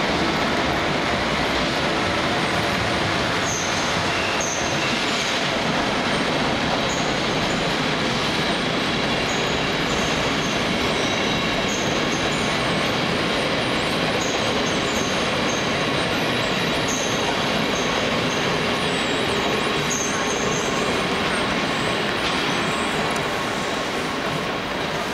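Locomotive-hauled passenger train running along the platform, a steady rolling rumble of wheels on rail with short high-pitched wheel squeals repeating over most of its passage.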